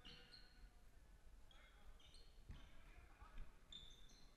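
Faint sounds of basketball play on a hardwood gym floor: a basketball bouncing a few times and short sneaker squeaks.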